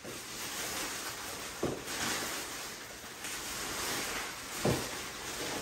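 Clear plastic sheeting rustling and crinkling as it is handled and pressed against a wall, with two brief knocks, one a bit under two seconds in and one near the end.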